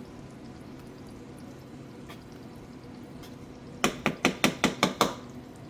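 A quick run of about eight sharp knocks, roughly six a second, from kitchenware being tapped, after a few seconds of faint steady background.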